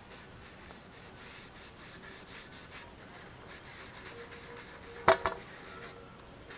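Cloth rag rubbing over a painted tin canister in repeated soft swishing strokes, blending oil-paint antiquing into the surface. A single sharp knock about five seconds in.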